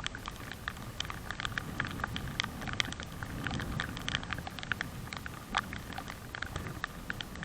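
Raindrops tapping irregularly and close by, many small ticks a second, over a steady low rumble.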